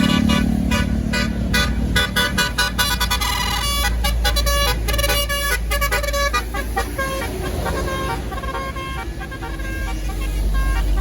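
Bus's basuri telolet horn playing a fast tune of short, quickly changing notes for about seven seconds, then fading to fainter held tones. Under it runs the low rumble of the bus engine, which grows louder near the end.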